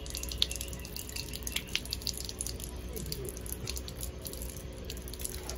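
A thin stream of water from an outdoor brass tap splashing over a small citrus fruit held under it, a quick, irregular patter of drips and splashes.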